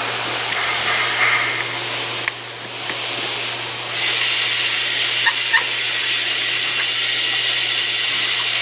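Steady hiss of a smoke-test machine blowing smoke and air into a turbocharged engine's intake and intercooler system. It comes in sharply about four seconds in, over a faint steady low hum.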